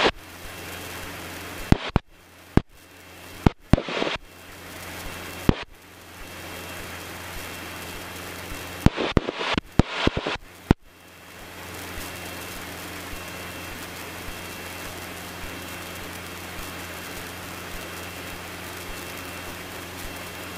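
Steady drone of a Cessna 150's four-cylinder Continental O-200 engine and propeller in flight, heard in the cabin. During the first half it is broken by a run of sharp clicks and brief cut-outs, then runs on evenly.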